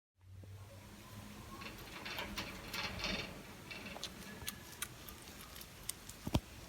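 Faint scattered clicks and ticks with bursts of scratchy rustling as bird toys and cage parts are handled, over a faint steady low hum.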